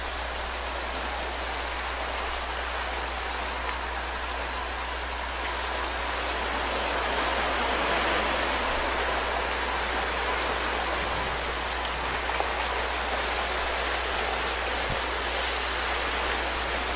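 Calm sea washing gently on the shore, a steady hiss of surf that swells a little in the middle.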